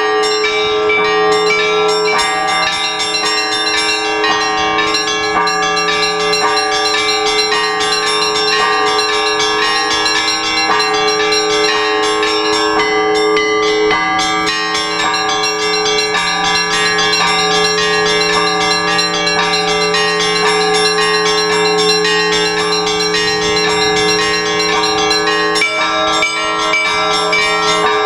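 Russian Orthodox church bells ringing a continuous peal: many bells of different sizes struck over and over, higher bells ringing quickly over steady lower tones. This is the ringing that calls the faithful to the all-night vigil.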